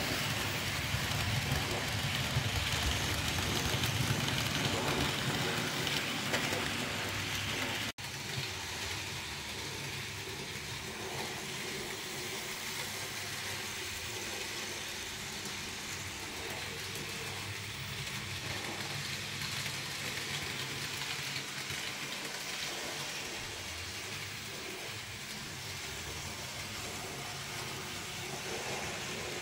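N gauge model trains running on the track, a steady motor whir and wheel noise. About eight seconds in the sound cuts off abruptly for an instant, then carries on a little quieter.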